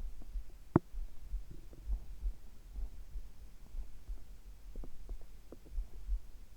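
Human heartbeat thudding in a steady low rhythm, with short stomach gurgles over it: a sharp pop about a second in, then a cluster of small gurgles about five seconds in.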